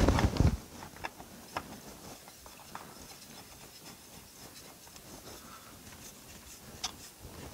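Faint clicks and rubbing of hands handling and fitting a plastic fuel filter on a compact tractor's diesel engine, after a brief low thud at the very start.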